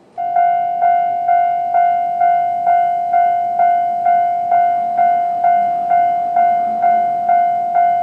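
Japanese railway level-crossing warning bell starting suddenly, a ringing electronic tone struck about twice a second. It signals that the crossing has activated for an approaching train.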